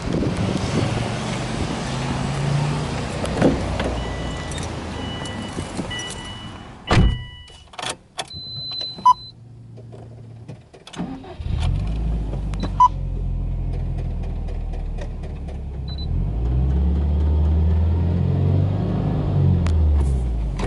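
A car door thumps shut and electronic beeps sound as the ignition comes on. Then, about 11 seconds in, the turbocharged flat-four of a Subaru Impreza WRX STi (GDB) cranks, catches and settles into a fast idle at about 2,000 rpm, the revs rising and easing back in the last few seconds.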